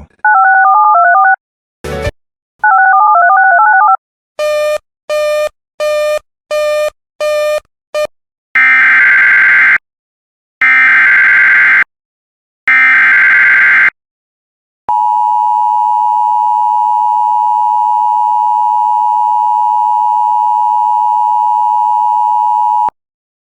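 Emergency Alert System tones. First come a few short electronic warbles and six quick beeps. Then three bursts of harsh, screeching SAME header data, each about a second long, and then the steady two-tone EAS attention signal, held for about eight seconds, which marks the start of an emergency alert.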